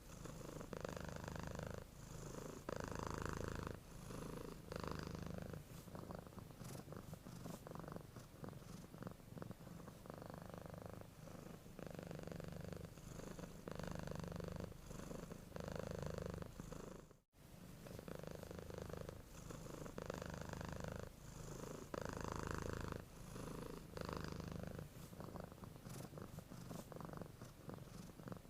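Domestic cat purring steadily, the purr swelling and easing with each breath in and out, with a momentary break about two-thirds of the way through.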